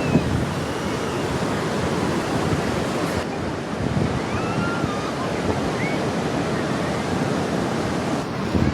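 Sea surf washing onto a beach, a steady rushing noise, with strong wind on the microphone.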